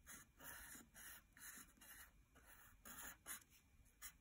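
Sharpie fine-point marker scratching on paper in a series of short strokes, drawing small lines. Faint.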